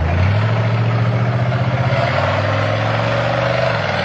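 Monster truck engine running at low speed as the passenger-ride truck rolls slowly past, a steady low engine note that shifts slightly in pitch near the end.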